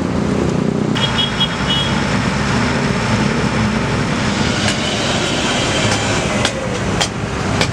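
Komatsu PC200 excavator's diesel engine running steadily under load, with a few sharp metallic clicks or knocks in the second half.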